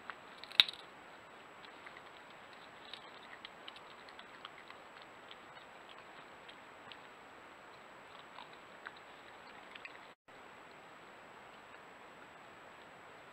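European badgers foraging and eating on wood chips: scattered small clicks and crunches of chewing and rooting over a steady background hiss, with one sharp click about half a second in. A brief dropout about ten seconds in.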